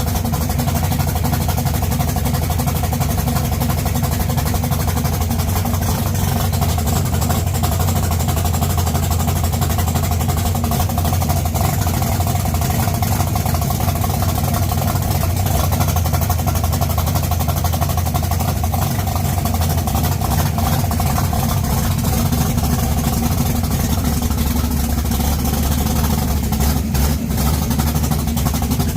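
1969 Camaro drag car's engine running steadily at idle, a deep even rumble with no revving.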